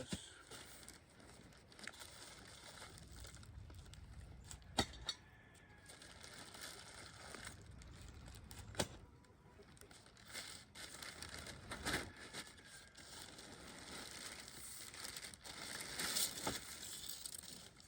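Packaging rustling and crinkling while flat-pack wooden coop pieces are unpacked and handled, with a few sharp knocks of wood against wood.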